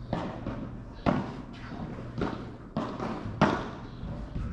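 A series of heavy thumps at uneven spacing, about five in all, each with a short echoing tail, over a steady low hum. The loudest come about a second in and about three and a half seconds in.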